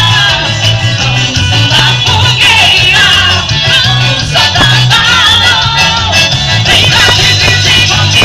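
Loud music with singing over a steady, repeating bass line.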